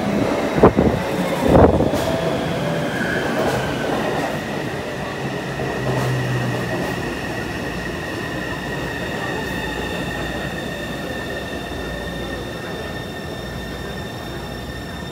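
Taipei Metro train pulling into the underground platform: a loud rumble that slowly eases as the train slows, with a steady high whine and squeal over it. Two sharp knocks come in the first two seconds.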